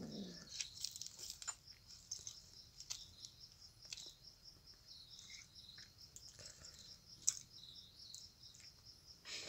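Crickets chirring steadily in the night background, a fast, even pulsing, faint. Scattered small clicks and taps come through, with a sharper click about seven seconds in.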